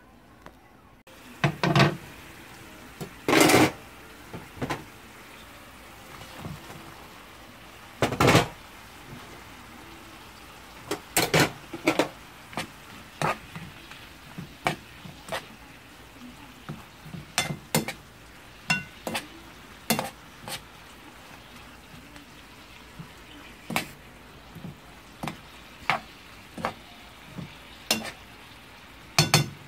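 Stir-fried anchovies with shishito peppers and yellow bell pepper sizzling steadily in a frying pan, with frequent sharp knocks and scrapes as a spatula stirs them against the pan. The sizzle starts about a second in.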